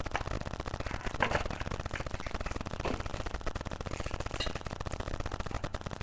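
Foil wrapper of a trading-card pack crinkling as it is handled and torn open, with a few short sharp crackles over a steady background hiss.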